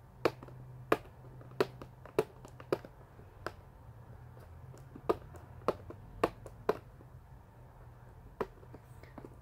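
Fingers and nails picking at a sealed clear plastic package, making about a dozen sharp, irregular plastic clicks and taps, most of them in the first seven seconds. A faint low hum runs underneath.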